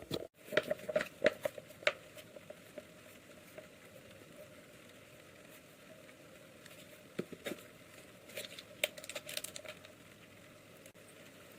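Kitchen handling sounds while cooking: scattered clicks, taps and crinkling in two clusters, about a second in and again from about seven to ten seconds in, over a faint steady hiss.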